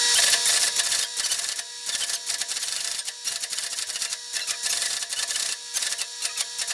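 Teletype Model 15 teleprinters printing a message as it is typed and sent between them. The typing and printing mechanisms clatter in a rapid, irregular run of mechanical clicks over a steady hum.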